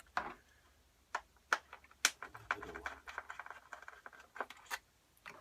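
A string of sharp clicks and light taps from small tools and hard parts being handled inside an opened iMac: irregular, about a dozen, with a faint ringing after some of them in the middle.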